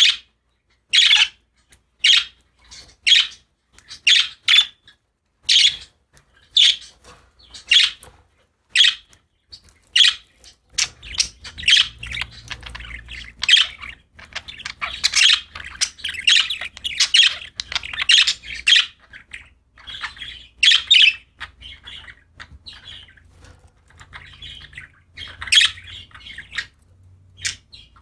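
Pet budgerigars chirping and squawking. Sharp single calls come about once a second at first, then from about eleven seconds in the calls crowd into steady chatter over a faint low hum.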